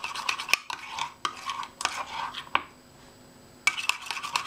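Metal utensil beating thick oat batter in a cup, clicking against the cup several times a second. The strokes slow and break up, stop for about a second, then start again fast near the end.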